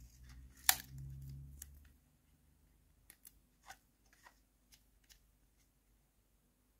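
Hard plastic toy playset piece handled in the fingers. One sharp click comes a little under a second in, followed by a scattering of light ticks and taps.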